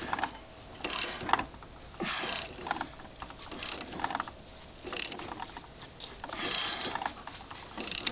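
Ratchet wrench clicking in repeated short strokes as it turns the bolt of a steering wheel puller, drawing a stuck steering wheel off its shaft.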